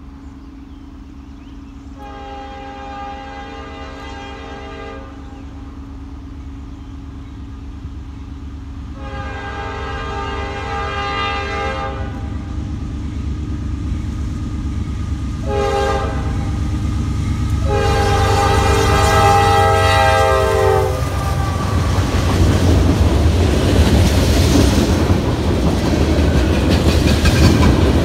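Diesel freight locomotive IC 1037 sounding its multi-note air horn in the grade-crossing pattern, long, long, short, long, as it approaches, over a low engine rumble that grows louder. After the last blast its freight cars roll past with loud clickety-clack from the wheels on the rail joints.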